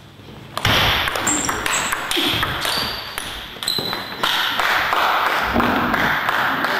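Table tennis ball clicks off bat and table, then about half a second in a sudden burst of crowd noise from the hall that carries on, as the point that wins the game 11–5 ends.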